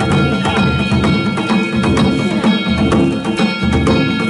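Danjiri festival music (narimono): drums and ringing hand gongs beaten in a fast, steady rhythm.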